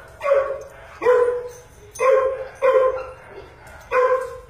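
A Doberman barking, five loud barks about a second apart.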